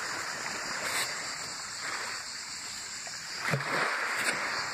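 Sea waves washing over a pebble beach, a steady hiss that swells and ebbs every second or two, with a brief knock about three and a half seconds in.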